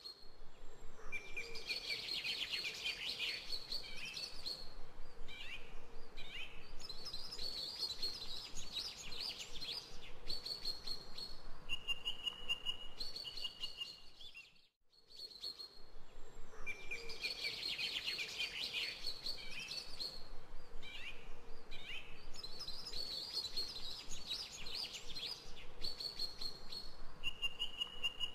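Birds chirping and singing in quick trills and short whistled notes. About halfway through it cuts out briefly, and the same stretch of birdsong starts over.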